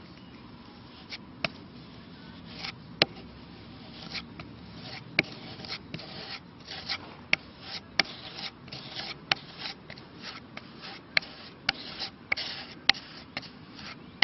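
Flexible putty knife scraping and clicking over a weathered wooden windowsill as stiff linseed oil glazing putty is pressed hard into the weather checks. Short strokes, a few at first, then coming about twice a second.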